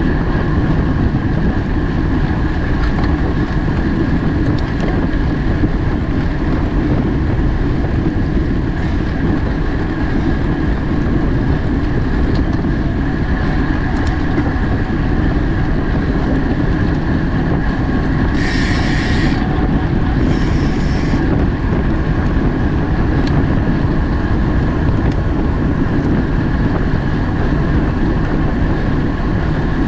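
Steady wind rush and road noise from a racing bicycle at speed, heavy on a bike-mounted camera's microphone. Two short, high hissing bursts come about two-thirds of the way through.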